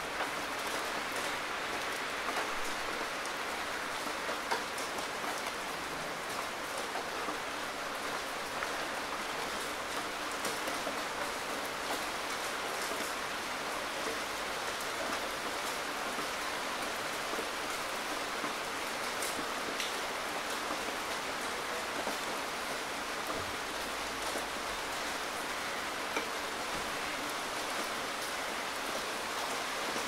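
Steady rain falling, a dense even hiss with scattered sharper ticks of single drops.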